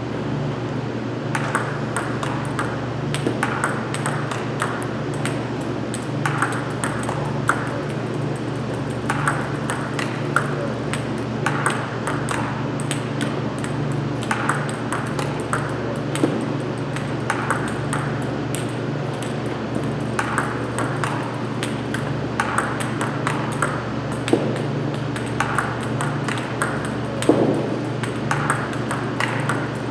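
Table tennis ball in a steady rally: sharp, light clicks of bat strikes and table bounces, about two a second, over a steady low hum.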